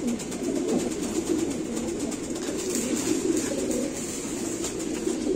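Many domestic pigeons cooing together in a loft, a continuous low, wavering warble of overlapping coos.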